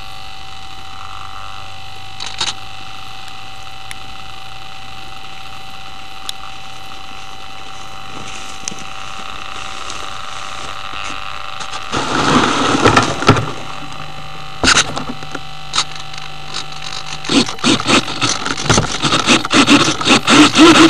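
Steady hiss with a faint constant whine from an RC model plane's onboard camera lying in tall grass. About twelve seconds in comes a loud rustle of grass against the plane, and from about seventeen seconds a run of rustles, knocks and scrapes as the foam plane is picked up by hand.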